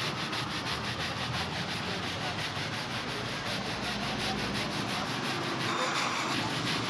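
Fast rhythmic rubbing or scraping, about six strokes a second, over a steady low hum, from work on a washing machine drum.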